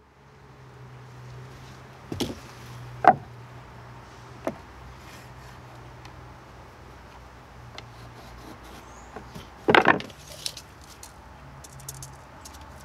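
Wooden knocks and handling noise as a deck skirt board is held and set against the deck's rim joist: a sharp knock about three seconds in and a louder cluster of knocks near ten seconds, followed by light clicking. A steady low hum runs underneath.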